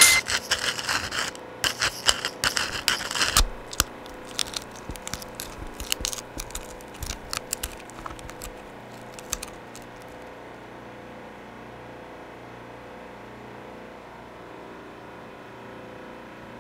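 Irregular scrapes and sharp clicks, dense at first, then thinning out and stopping about ten seconds in. A steady faint hum is left behind them.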